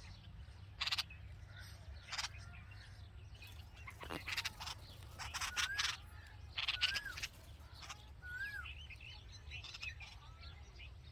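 Red-vented bulbuls calling at the nest: a series of short, harsh, raspy calls, clustered between about four and seven seconds in, mixed with a few brief whistled notes that rise and fall.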